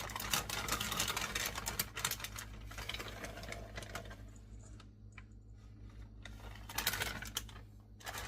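Shredded cheese being shaken out of its plastic bag into a bowl: a quick run of crinkling and rustling for about four seconds, then another short burst near the end.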